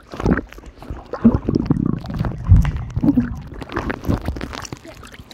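Pool water sloshing and splashing around a camera at the surface, turning to muffled gurgling and rumbling as it dips underwater, with a heavy low thump about halfway through.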